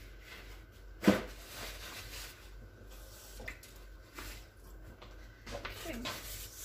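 A single sharp knock about a second in, then faint handling noises. Near the end, a paper towel rubs and squeaks around the inside of an empty stainless-steel mixing bowl, wiping out dust.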